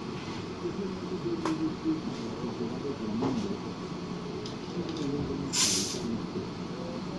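A short hiss from an automotive paint spray gun, a burst of atomised paint and air about five and a half seconds in, over a steady muffled background.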